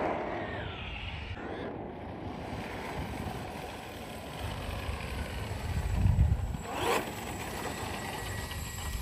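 MCD XS5 Max 1/5-scale electric RC car driving at a distance on asphalt: electric motor whine and tyre noise, with a quick rising whine near seven seconds as it speeds up.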